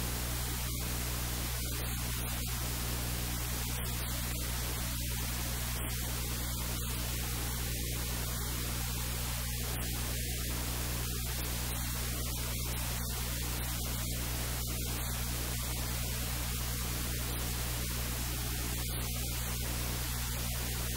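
Steady hiss of static over a low electrical hum, unchanging throughout; no speech can be made out.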